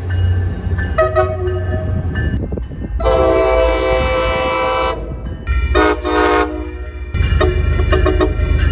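A train horn sounding several blasts, the longest lasting about two seconds, over the low rumble of the train.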